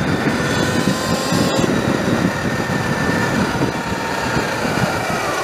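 Sur Ron electric dirt bike running on a 72-volt battery at riding speed: a thin, steady electric-motor whine over heavy wind rush on the microphone.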